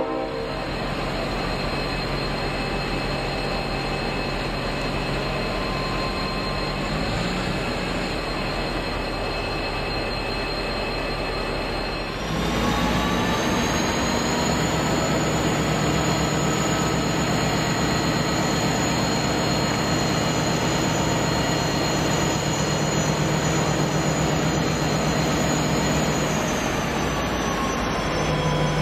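Diesel locomotives of a ballast train idling with a steady engine note and a high whine, then revving up about twelve seconds in, the pitch rising and holding before easing back down near the end.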